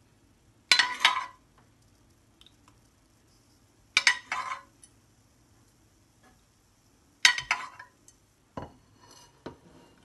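Steel ladle clinking against a metal saucepan as orange lolly mixture is scooped out and poured into popsicle moulds. There are three sharp clinks, each with a short rattle, about three seconds apart, then two lighter knocks near the end.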